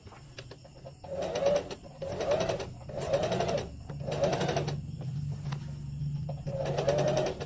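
Singer electric sewing machine stitching a concealed zipper seam in five short bursts, each well under a second long. The needle runs fast, and the motor hums steadily between bursts.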